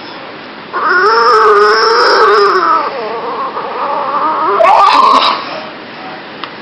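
A dog's long, wavering vocal howl, starting about a second in, then carrying on more weakly with a second swell near the end.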